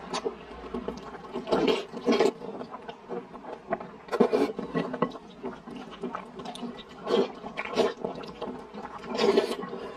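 A person slurping saucy noodles in short, wet bursts every second or two, with softer chewing and mouth sounds between the slurps.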